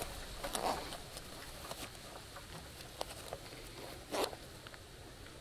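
Fabric backpack pouch being handled: faint rustling and scraping of the pouch material, louder twice, about half a second in and just after four seconds, with a few soft ticks between.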